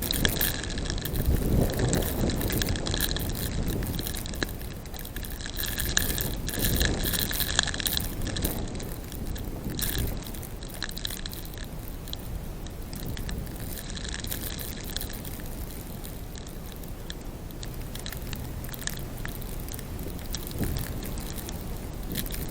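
Broom brushing heavy wet snow off a truck: repeated scratchy scraping strokes, with busy clusters over the first several seconds and again about two-thirds of the way through.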